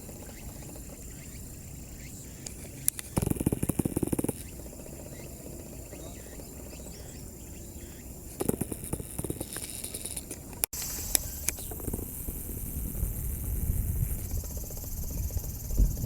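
Outdoor ambience: a steady low rumble with a thin, high insect-like trill, broken by two short bursts of rustling noise. After a sudden cut about two-thirds of the way in, a louder low rumble builds toward the end.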